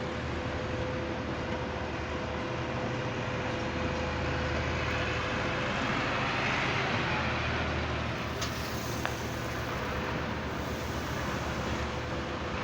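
Heavy machinery at a ready-mix concrete batching plant running steadily, a low hum with a steady whine, swelling a little about halfway through.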